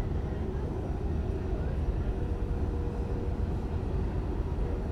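EMD F-unit diesel locomotive running steadily: a continuous low rumble with a steady hum over it.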